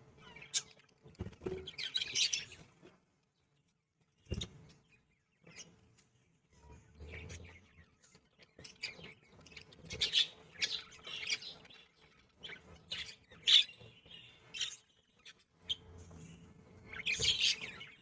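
Budgerigars chirping and chattering in short, high bursts with pauses between them.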